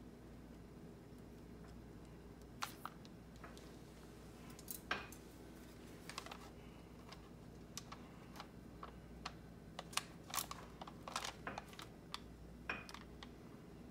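Faint, irregular small clicks and taps from hands working on candy-coated cake pops with a toothpick and a small glass bowl of coating on parchment paper, over a steady low hum.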